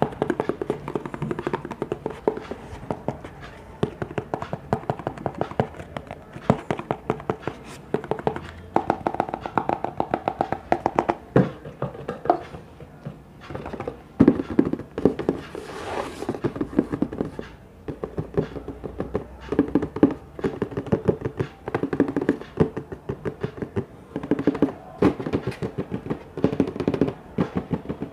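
Fast tapping on hard objects in flurries of many taps a second, with short gaps between flurries.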